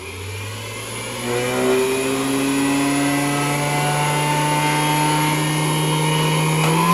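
Hamilton Beach Model 40 triple milkshake mixer, center spindle motor starting on low speed: its hum rises in pitch for about two seconds as the motor spins up, then runs steadily. Right at the end the pitch jumps up as the switch is moved to the next speed.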